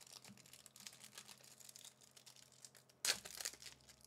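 A Magic: The Gathering Jumpstart 2022 booster pack being torn open by hand, its plastic wrapper crinkling in short scratchy crackles, with a louder rip about three seconds in.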